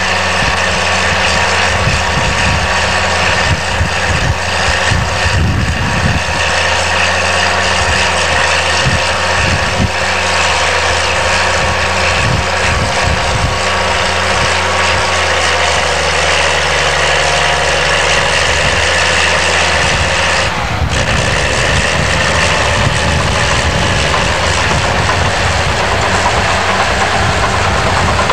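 Crawler bulldozer's diesel engine running steadily, with irregular knocks and clanks over it and a high steady whine.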